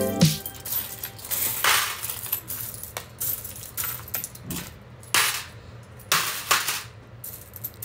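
A heap of coins in a plastic tub clinking and rattling as hands rummage through them and pick coins out, with a few louder jingles as handfuls are stirred.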